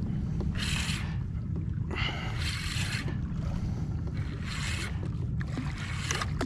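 Wind rumbling on the microphone, with water slapping and hissing against a kayak hull in short bursts every second or two.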